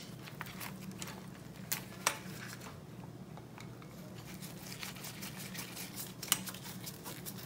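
Screwdriver work on a motorcycle's carburettor-top screws: a few scattered small metallic clicks and taps, the clearest about two seconds in and again near the end, over a faint steady low hum.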